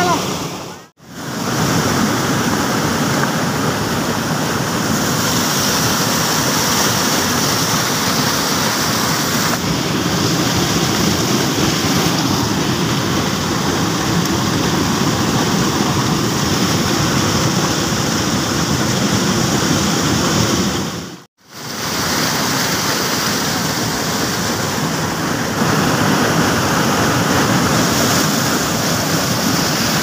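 Loud, steady rush of fast-flowing river water tumbling and foaming over rocks. It breaks off briefly twice, about a second in and again about two-thirds of the way through.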